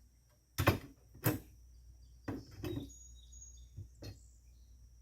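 A handful of separate knocks and clatters of hard tools and parts being handled, with quiet gaps between them, as a bigger drill bit is searched for.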